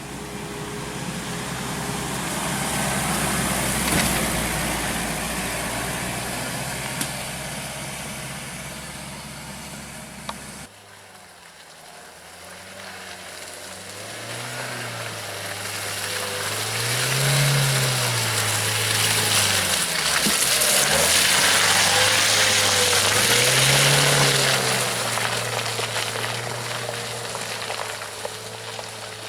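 4x4 SUV engine pulling through mud, with heavy tyre and mud noise over it. At first the engine holds a steady drone. After an abrupt cut about eleven seconds in, it revs up and down repeatedly as the wheels churn.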